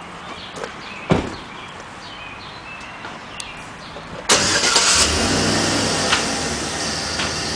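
A vehicle engine starts suddenly a little past the middle and keeps running steadily with a low hum. Earlier, a single thump about a second in.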